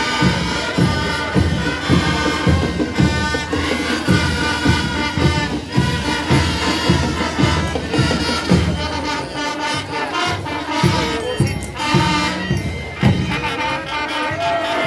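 Student marching band playing: brass melody over a steady, regular drum beat.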